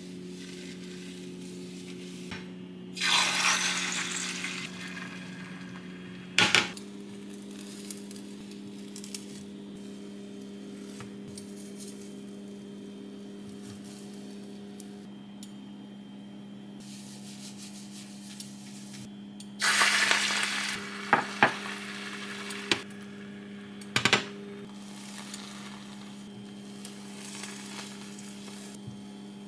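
Beaten egg hitting a hot oiled rectangular frying pan and sizzling, loudly twice, about three seconds in and again about two-thirds of the way through, each time fading over a second or two. Between them spatulas tap and scrape the pan as the rolled omelette is folded and patted into shape, over a steady low hum.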